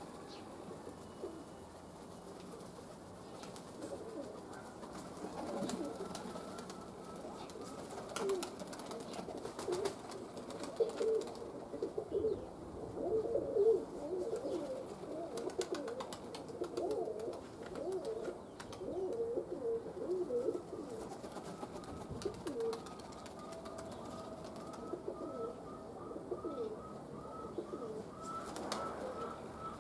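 Domestic pigeons cooing, several birds at once with overlapping low coos, busiest and loudest in the middle stretch.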